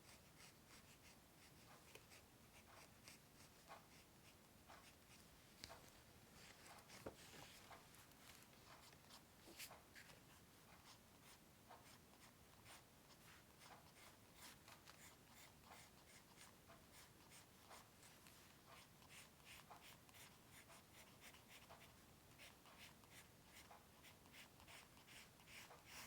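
A drawing tool scratching on paper in quiet, quick, short strokes, several a second.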